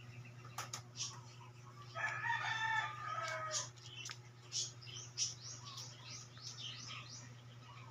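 A rooster crows once, about two seconds in: a drawn-out call that falls in pitch at the end. Short, high chirps are scattered throughout over a steady low hum.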